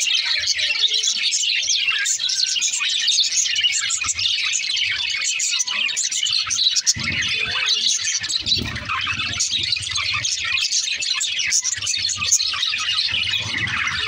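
Budgerigars chattering and warbling, a steady dense twittering of several birds at once. A few low thumps come about halfway through.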